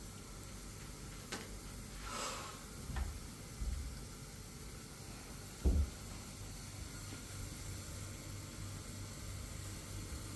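Steady low rumbling noise with a faint hiss, a few light clicks, a brief swish about two seconds in and a thud a little before the middle.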